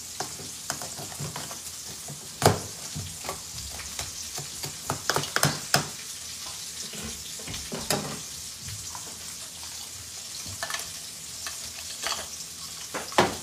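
Steak sizzling in a hot pan with a steady frying hiss, while a cooking utensil scrapes and knocks against the pan a handful of times, the loudest knock about two and a half seconds in.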